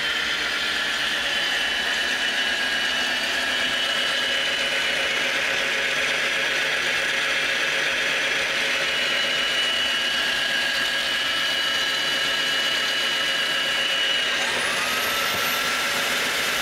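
Osotek Horizon H200 wet-dry vacuum mop running its self-cleaning cycle in the charging dock: a steady motor whine. About fourteen seconds in the motor speeds up and the whine rises sharply to a higher pitch.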